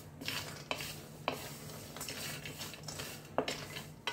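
Wooden spatula stirring and turning a dry mix of nuts and seeds in a stainless steel pan as they dry-roast. The nuts rattle and scrape against the metal, with about five sharper knocks.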